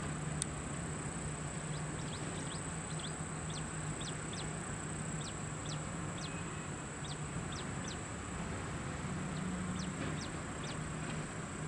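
Birds chirping: a quick, irregular run of short, high, downward-sweeping notes over a steady low drone and a constant thin high whine. A single sharp click sounds about half a second in.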